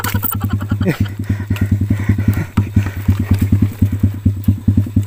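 Small 110 cc single-cylinder four-stroke pit bike engine running at low, steady revs, with an even, rapid pulsing beat.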